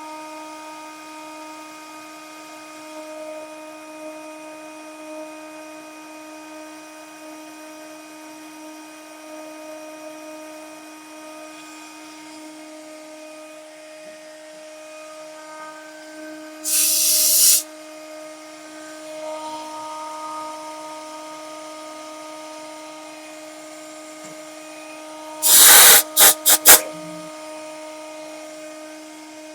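CNC machine's spindle running with a steady whine during a PCB isolation-milling program. Twice it is cut into by loud bursts of hiss: one lasting under a second a little past halfway, and a quick cluster of four short bursts later on.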